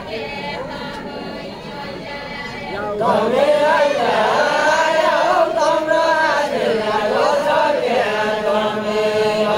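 A group of voices singing a deuda, the circle-dance song of far-western Nepal, together in unison. The singing grows louder about three seconds in and holds long, wavering notes.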